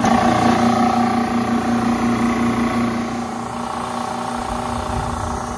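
JB Industries refrigerant recovery machine switched on, its compressor starting abruptly and running steadily as it recovers refrigerant from the unit into a recovery tank.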